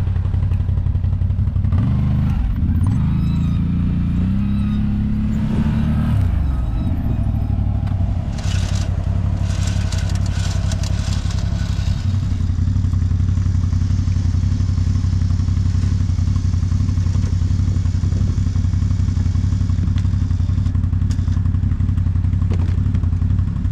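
Quad bike engine running steadily. It revs up about two seconds in, holds the higher pitch for a few seconds and drops back, with some clattering around nine to twelve seconds in.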